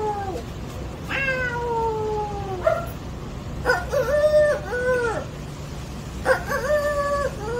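A man imitating a cat with his voice: a long drawn-out meow falling in pitch, then two pairs of shorter meows.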